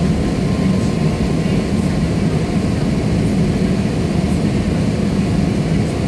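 Aeroplane engines running during take-off: a steady low rumble with a faint whine, holding level throughout.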